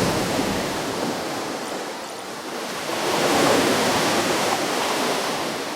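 Ocean waves washing onto a shore. One wave's rush fades over the first two seconds, then another breaks about three seconds in and slowly ebbs.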